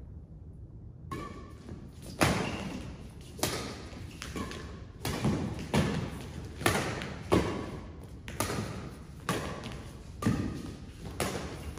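Badminton rackets hitting a shuttlecock in a fast doubles rally: a string of sharp hits, one roughly every half second to a second, starting about a second in and ringing in a large hall.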